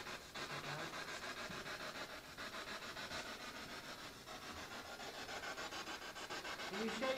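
Spirit box, a radio scanner used in ghost hunting, sweeping through stations: a steady hiss of static chopped into rapid, even pulses.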